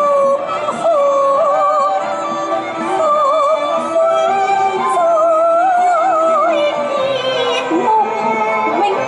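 Cantonese opera music: a high, ornamented melody that wavers and bends continuously, over a lower sustained accompaniment.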